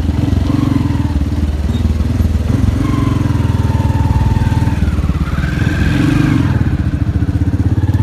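Bajaj motorcycle engine running at low speed, heard from the rider's seat, its note dipping and swelling a little as the bike creeps past stopped cars.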